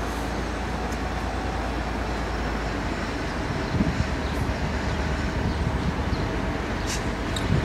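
V/Line N class diesel locomotives running as they approach at a distance: a steady low engine drone over rail noise, with a few knocks past the middle and a sharp click near the end.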